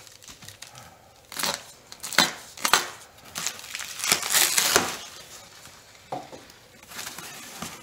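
Plastic stretch wrap and foam packing sheet crinkling and tearing as a small knife cuts through them, in a few short bursts and a longer, louder one about four seconds in.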